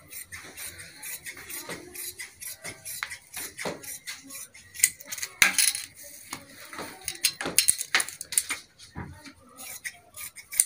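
Metal tailor's shears cutting through cotton cloth: a run of quick, uneven snips, the blades clicking as they close.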